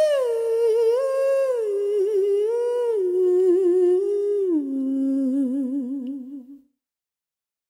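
An unaccompanied solo voice sings a slow phrase of held notes with a wide vibrato. The notes step downward in pitch and stop about two-thirds of the way through, leaving silence.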